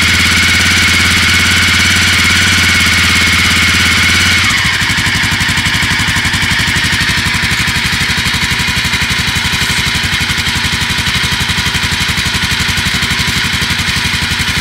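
1985 Honda XL600R's single-cylinder four-stroke engine idling after a cold start. About four seconds in the revs drop from a fast, even idle to a slower idle with a distinct beat of separate firing pulses.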